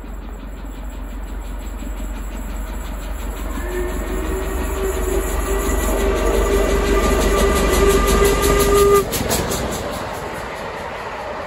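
LMS Princess Coronation Pacific steam locomotive 6233 Duchess of Sutherland approaching at speed, its noise growing. About three and a half seconds in, it sounds one long, steady whistle of about five seconds, which cuts off sharply as the engine passes. The coaches then run by.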